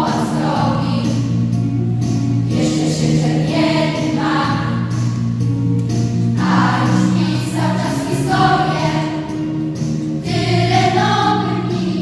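Children's school choir singing a song together.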